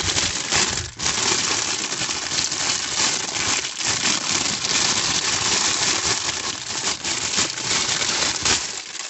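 Clear plastic bag crinkling and crackling as hands handle and unwrap a DSLR camera body inside it, with a brief lull about a second in.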